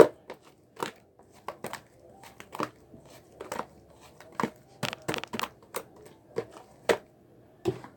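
Slime being squeezed and poked by hand, making irregular sharp pops and clicks of trapped air, a few a second, with one loud pop at the start.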